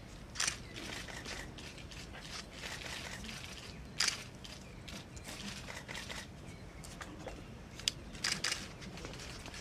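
Outdoor background hiss with a few sharp clicks from camera shutters: one about half a second in, a stronger one around four seconds, and a quick cluster near the end.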